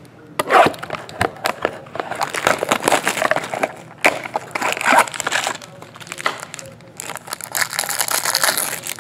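Clear plastic shrink-wrap being torn and crinkled off a trading-card box by hand: a dense run of crackling and tearing with many sharp snaps.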